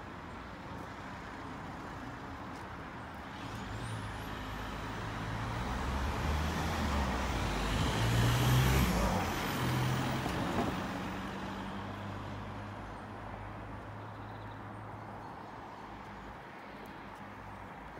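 A road vehicle passes close by, its engine and tyre noise growing louder to a peak about nine seconds in and then fading away.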